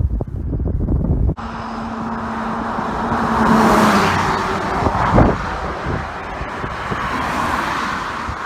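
Wind rumbling on the microphone, cut off sharply a little over a second in. Then a twin-engine turboprop plane goes by on the runway: a steady rushing engine noise with a droning tone that swells to a peak near the middle and then eases off.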